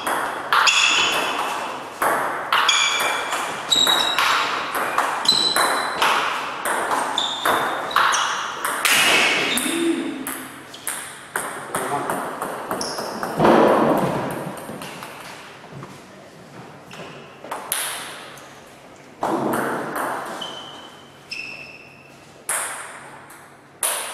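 Table tennis ball being hit back and forth in a rally, a sharp ping of bat and table about every half second. The rally stops about ten seconds in, and after that there are only scattered single pings.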